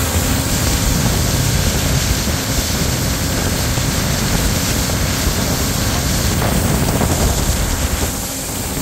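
Aluminium boat underway on a river: its motor running steadily at speed under a loud, even rush of wind and water, easing slightly near the end.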